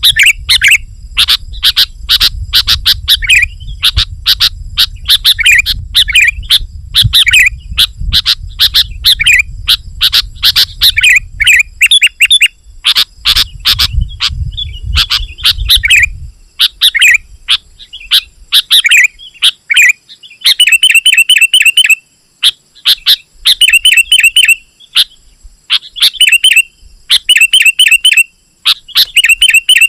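Sooty-headed bulbul (kutilang) singing loudly and continuously in quick, busy phrases, with a low rumble underneath during the first half. From about two-thirds of the way in, the song turns into short, fast chattering bursts repeated every second or two.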